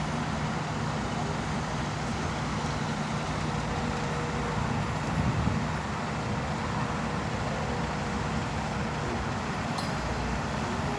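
Heavy diesel construction machinery, an excavator and dump truck, running steadily with a low hum and a brief swell in engine noise about five seconds in.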